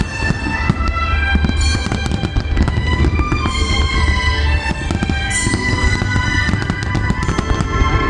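Large fireworks display going off without pause: a dense run of bangs and crackling over a deep rumble, with music playing underneath.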